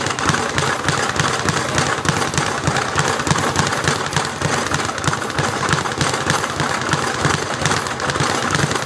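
Speed bag being punched in a fast, steady rattle, the bag rebounding off its platform board in a rapid run of hits.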